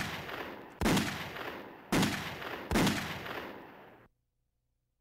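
Four loud bangs about a second apart, each ringing out in a long echoing decay; the sound then cuts off abruptly to dead silence about four seconds in.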